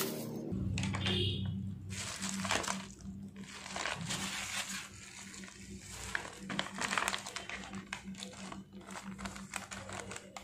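Bubble wrap and clear zip-lock plastic bags crinkling and rustling as hands unwrap and handle them, in many irregular crackles. A steady low hum sits underneath from about half a second in.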